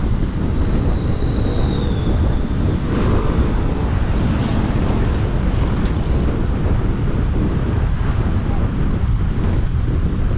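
Wind buffeting the microphone of a camera riding on a moving electric scooter: a steady, loud, low rumble. A faint high whistle sounds briefly near the start and dips slightly in pitch.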